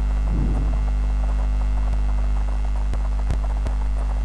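Steady electrical mains hum with its stacked overtones, picked up in the recording chain, and a few faint clicks in the second half.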